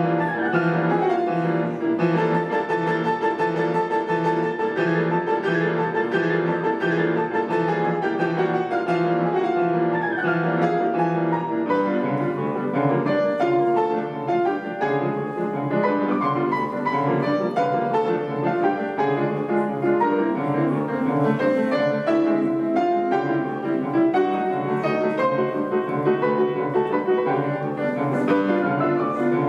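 Piano duo playing classical music: a melody over steadily repeated low notes, with a quick falling run about a second in and again about ten seconds in.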